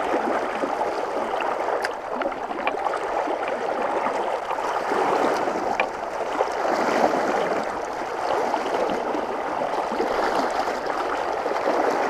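Swollen river running fast over shallows: a steady rushing of water, high and tinted after storms, with a few faint clicks.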